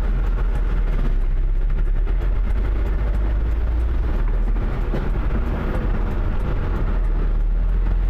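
Heavy diesel cargo trucks running close by as they crawl along a muddy, rutted road: a loud, steady low engine rumble.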